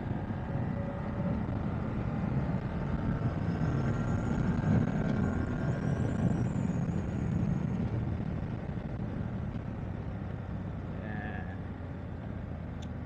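BMW F 750 GS parallel-twin engine running under way in third gear, with wind noise. It pulls harder for the first several seconds, then eases off as the bike slows.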